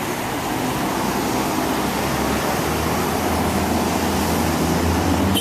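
Steady low rumble under a wash of hissing noise, growing a little stronger about two seconds in, with no separate bangs. The recorder takes it for a loud booming sound in the sky coming from the west.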